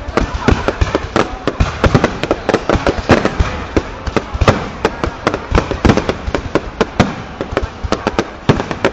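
Fireworks display: a dense, continuous run of bangs and crackles, several a second, with no let-up.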